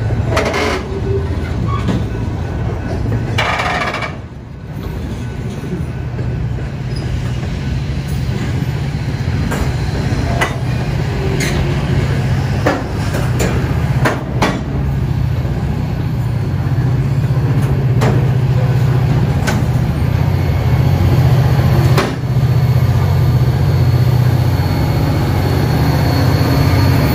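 Freight train of coal hopper cars rolling past a road crossing, the wheels knocking irregularly over the rail joints. A low, steady diesel locomotive drone grows louder in the second half as the Wheeling & Lake Erie locomotives draw near.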